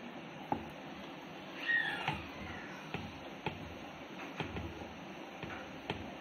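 Wooden rolling pin rolling stuffed dough flat on a wooden chapati board: soft rumbling strokes with light knocks of wood on wood scattered through. About two seconds in comes a brief high-pitched cry, the loudest sound here.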